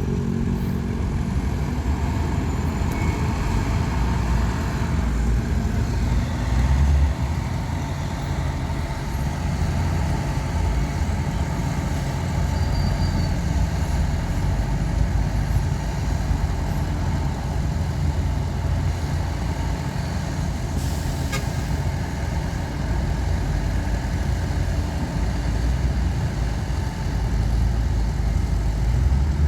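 Heavy diesel engines of earthmoving machines, a bulldozer and dump trucks, running steadily as dirt is moved, with a short knock about two-thirds of the way through.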